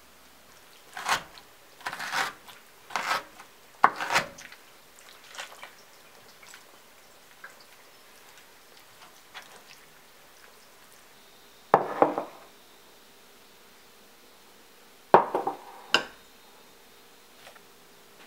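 Food-prep handling sounds: a metal spoon scraping and knocking against a ceramic bowl, four times in the first few seconds, while stirring thick gochujang chili sauce. Later come two short bursts of louder scraping and knocks as chopped kimchi is gathered off a wooden cutting board into a bowl.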